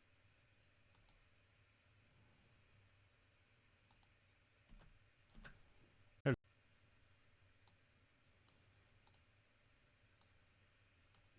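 Faint, scattered computer mouse clicks in a quiet room, with one short, much louder burst about six seconds in.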